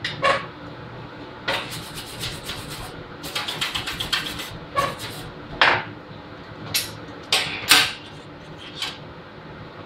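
Metal tools and parts being handled and scraped on a welding bench: two quick runs of short scraping strokes, then several separate sharp metal clinks, over a steady hum.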